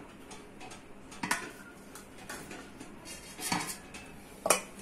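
Stainless steel pots and vessels clinking and knocking a few times as a cloth of steamed ragi puttu is lifted out of an idli steamer pot; the loudest knock comes near the end.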